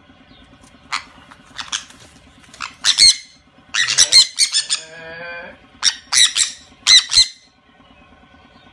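Sun conures squawking: a string of loud, harsh, high-pitched squawks in short bursts, with a lower wavering call about halfway through.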